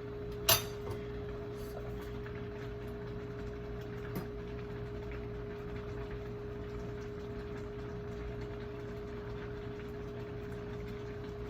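Pot of water heating on the stove toward a boil: a steady hiss and low hum, with one sharp clack about half a second in.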